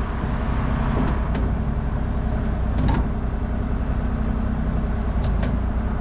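Rollback truck running steadily on the road, heard from inside the cab as a low engine and road drone, with a faint knock about three seconds in.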